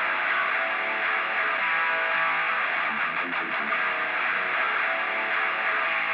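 Background music: a guitar-led instrumental, steady and mid-heavy.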